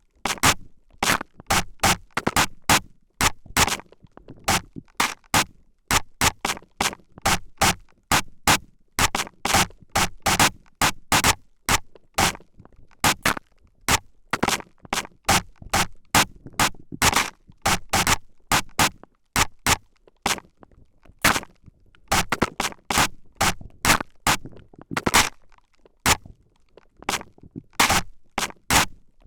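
Spray bottle squirted in quick short spritzes close up at the left and right ears, about two to three sprays a second, unevenly spaced.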